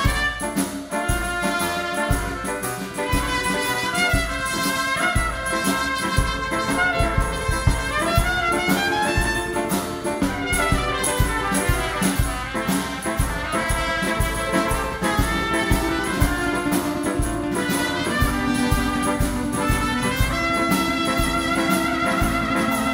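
A small live band playing an up-tempo tune, with a trumpet carrying the melody over accordion, piano, acoustic guitar and a steady beat from drum kit and congas.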